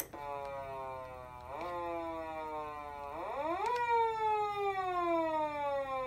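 Button click, then a Patlite SAP-500BWZ-G electronic siren amplifier sounding its patrol-car siren at low test volume. The wail falls, rises briefly, falls again, rises, then slides down slowly.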